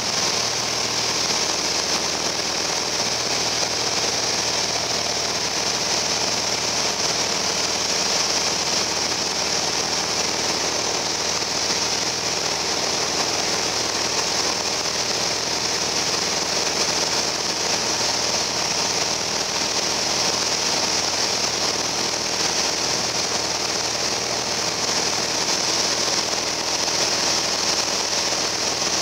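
Steady cabin drone of a Piper Cherokee Arrow's four-cylinder piston engine and propeller in level flight, with a strong, even high hiss of airflow over the cabin.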